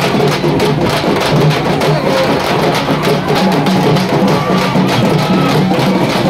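Large double-headed processional drums beaten with sticks, played together in a fast, continuous rhythm.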